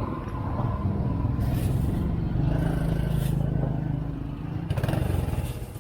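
A motor vehicle engine running close by, a steady low hum that grows stronger through the middle, with a few short bursts of hiss.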